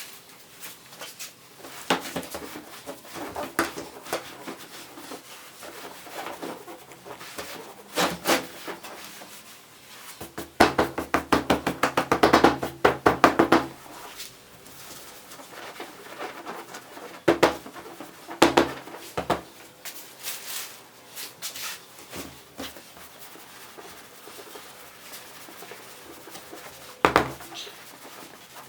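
Scattered knocks, clatter and rubbing from work on a wooden chair, with a quick run of rapid taps from about ten to fourteen seconds in and a few sharper knocks later.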